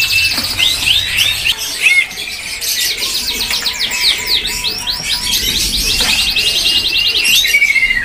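Several caged songbirds singing and chirping together: fast trills of rapidly repeated notes mixed with quick down-slurred whistles.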